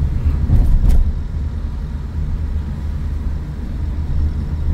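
A car driving on the road, a steady low engine and road rumble, with a brief louder knock about a second in.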